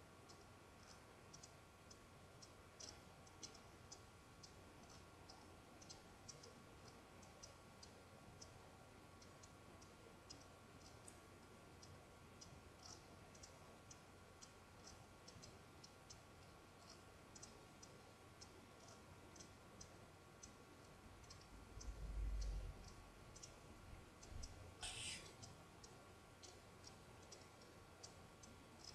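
Near silence with faint, steady ticking, about two ticks a second, and a couple of soft low bumps near the end.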